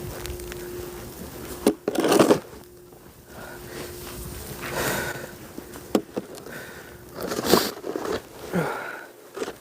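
A snow shovel scraping and scooping snow in several separate strokes, the loudest about two seconds in and again near the end, with a few sharp knocks in between.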